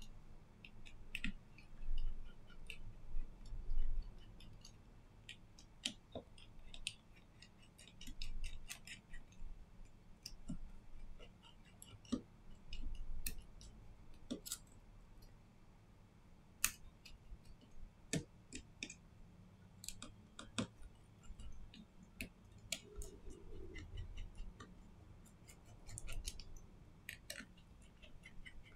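Irregular sharp clicks and light taps of small repair tools and parts being handled on a Samsung Galaxy A52s 5G phone during a screen repair, with a few soft thumps in the first few seconds.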